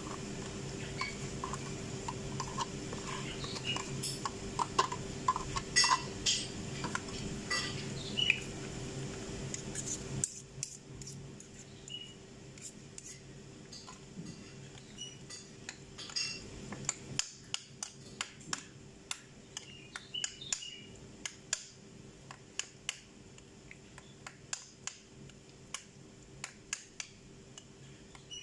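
Metal spoon scraping and knocking against a yogurt cup and a ceramic bowl, many small irregular clicks as yogurt is scooped into the bowl. A steady low hum sits under the first third and stops abruptly about ten seconds in.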